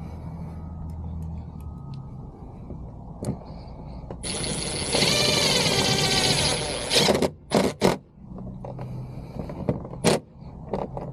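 A small power driver runs for about three seconds, driving in a door-panel screw, followed by a few sharp clicks and knocks.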